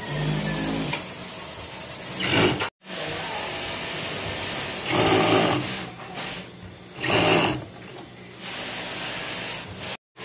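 Industrial sewing machines stitching fabric: the under-table motors hum steadily, and the needle runs in short loud bursts about two, five and seven seconds in.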